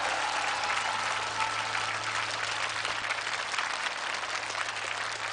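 Audience applauding, a dense even clapping, with a low steady hum underneath.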